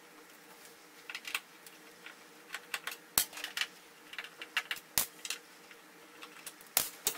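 Irregular small clicks and taps of a screwdriver and hands working at the plastic back cover of a Hisense 58A7100F LED TV while its screws are being taken out. The sharpest knocks come about three seconds in, around five seconds in and near the end.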